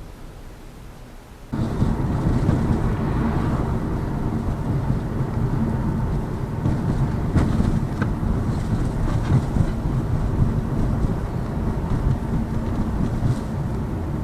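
Road and tyre noise inside the cabin of a Lada Vesta Cross driving over a rough, broken road, with a few short suspension knocks over bumps. The noise steps up suddenly about a second and a half in.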